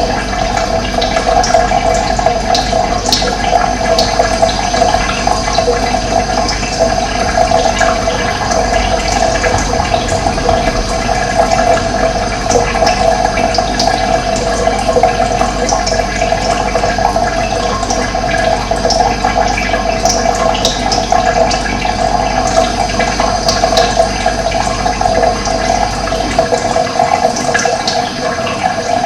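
Steady, unbroken rush of running water, with short high chirps scattered over it.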